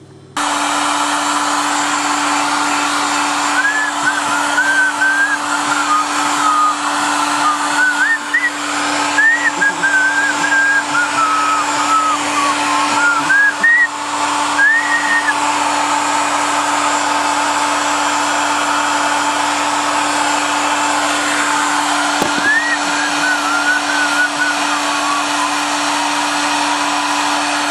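A heat gun switches on just after the start and blows steadily with a constant hum, heating the glue that holds a car headlight's glass lens. Over it a person whistles a wandering tune, for about ten seconds and again briefly near the end.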